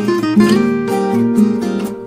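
Background instrumental music: a melody of quickly changing plucked notes over chords.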